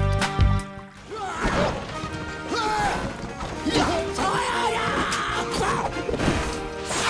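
Background music with a heavy beat, giving way about a second in to a busy stretch of crashing and smashing sound effects with short gliding squeals over music.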